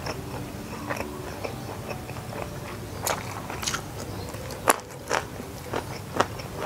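A person eating close to the microphone: chewing, with a run of sharp, crisp crunches starting about three seconds in.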